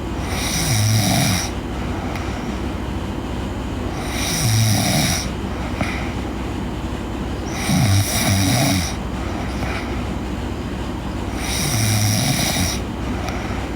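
A girl snoring in her sleep: four slow, regular snores about every three and a half to four seconds, each about a second long, the third one broken in two. A steady hiss runs underneath.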